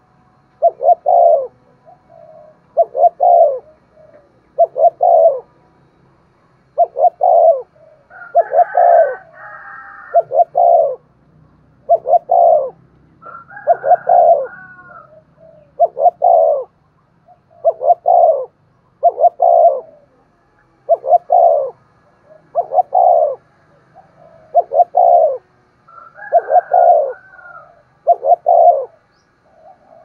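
Spotted dove cooing in short repeated phrases of two or three quick notes, about one phrase every two seconds. A few higher, brief chirping notes are mixed in.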